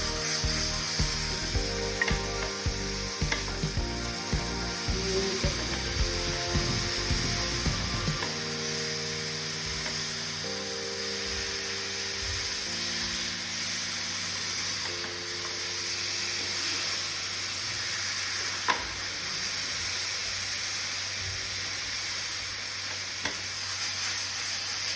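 Banana slices caramelizing in butter and sugar in a frying pan: a steady sizzle, with stirring and a few sharp clicks of the utensil against the pan.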